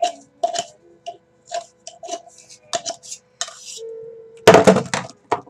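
Light, irregular clicks and taps of small objects being handled on a tabletop, then a loud, brief burst of handling noise about four and a half seconds in.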